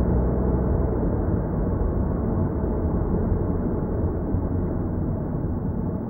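Steady road and engine noise of a car driving, heard from inside the cabin, easing off slightly as the car slows.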